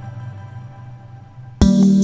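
Background music: a soft, fading passage of held tones, then about one and a half seconds in a louder section with drum beats comes in suddenly.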